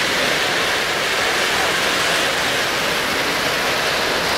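O-scale three-rail model trains rolling past on their track, an even, unbroken rushing noise.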